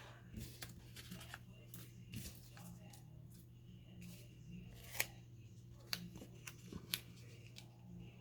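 Paper and card pieces being handled and shifted about: faint rustling with a few sharp clicks, the loudest about five seconds in and two more near the end, over a steady low hum.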